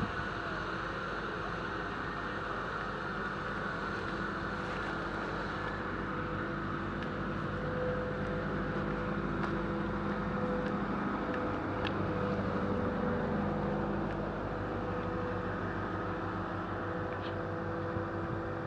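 Mobile crane's engine running steadily as it hoists a prefabricated roof panel, growing a little louder in the middle.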